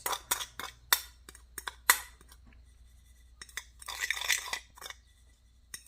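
A kitchen utensil clinking and tapping against a dish while ground meat is mixed with seasoning: a run of sharp clinks, with a brief scraping rustle about four seconds in.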